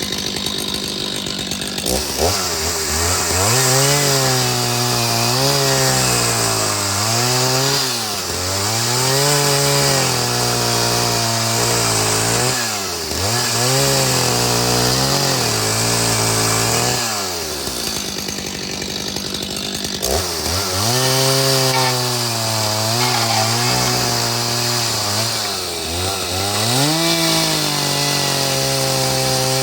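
Stihl MS 310 two-stroke chainsaw running hard. The engine climbs to high speed, holds there for several seconds, then drops back briefly before climbing again, about five times.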